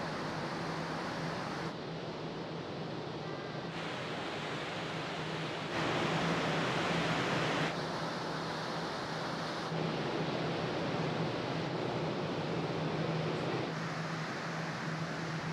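Wind and rushing water on the open deck of a large car ferry under way, over a steady low hum from the ship. The rushing noise changes abruptly every couple of seconds, loudest a little under halfway through.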